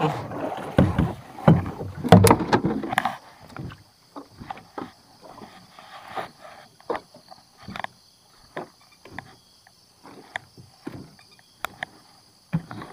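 Water splashing and dripping around a small boat as a gill net is hauled over the side, louder for the first three seconds, then many small scattered taps and knocks.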